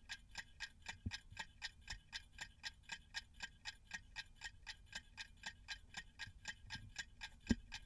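1953 Smiths Enfield clock's balance-wheel movement ticking quickly and evenly, about five ticks a second: the overhauled clock running in beat with a healthy amplitude. A soft low knock comes near the end.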